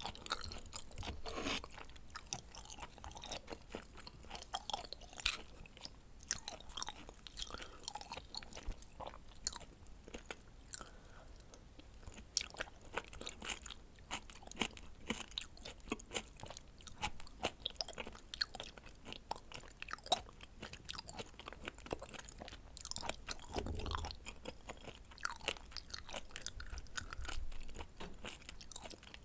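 Close-miked chewing of raw seafood (red shrimp and scallop sashimi): a steady run of short, irregular mouth clicks and smacks.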